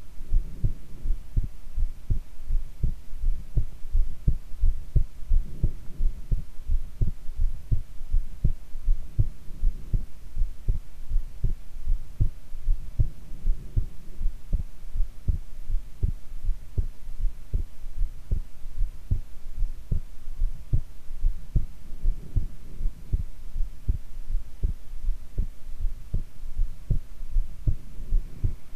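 A woman's heartbeat, recorded while she lies face down: regular, steady low thumps with a faint steady hum beneath.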